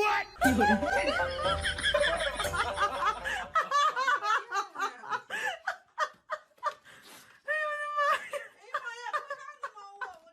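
People laughing in quick repeated bursts of rising and falling pitch, heaviest in the first few seconds, with a few more drawn-out laughing cries near the end.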